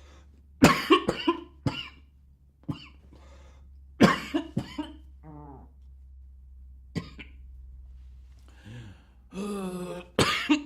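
A man coughing hard in repeated fits, several harsh coughs in quick succession at a time, with a short strained vocal sound just before a last strong cough near the end.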